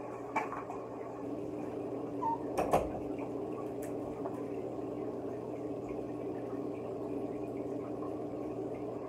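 A steady low hum, with a few short knocks and a louder pair of thuds about two and a half seconds in.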